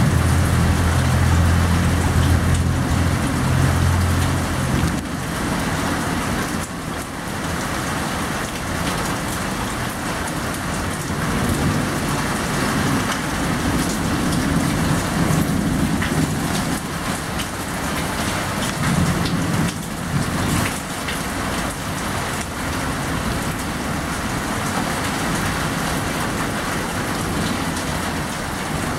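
Steady rain falling in a thunderstorm. A low rumble of thunder fills the first four seconds, and fainter rumbles swell up again later.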